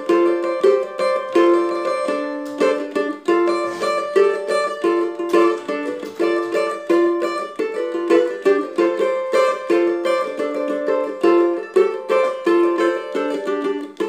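Cavaquinho strummed in a steady rhythm, chords changing every second or two.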